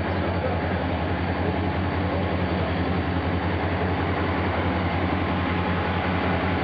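Diesel-electric locomotive idling: a steady low engine hum with no change in speed.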